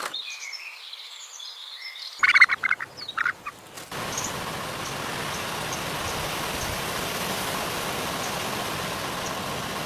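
Birds calling: thin high chirps at first, then a burst of loud, harsh calls about two seconds in. From about four seconds a steady hiss sets in, with faint high chirps above it.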